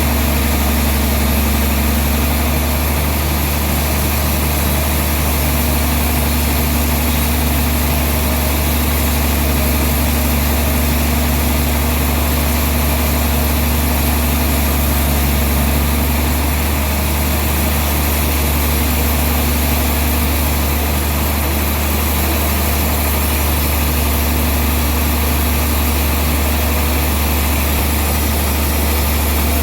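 Sawmill machinery running steadily with a deep, unchanging engine hum.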